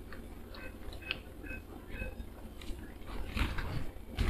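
Faint sounds of people eating at a table: chewing and a few light, scattered clicks.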